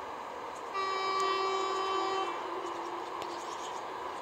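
TEP70BS diesel locomotive sounding its horn: a chord of several steady notes for about a second and a half, then a single slightly lower note held for about another second and a half before it stops.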